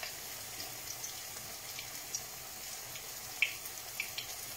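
Akara (bean-batter fritters) frying in hot oil in a pan: a steady sizzle with scattered small pops, the sharpest about three and a half seconds in.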